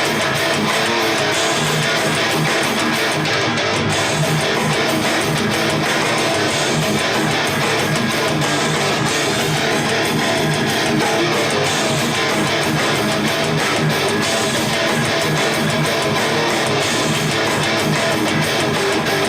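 Guitar-led music with strummed guitar, played back through Radiotehnika S-90E loudspeakers fitted with Alphard mid-range and tweeter drivers. It plays at a steady, loud level.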